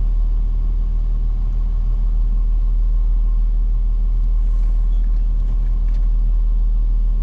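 Car engine idling, a steady low drone heard from inside the cabin.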